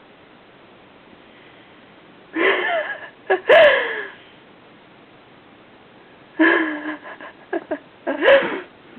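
A sleeping puppy snoring, with short wheezy, squeaky breaths in two groups, about two seconds in and again about six to eight and a half seconds in.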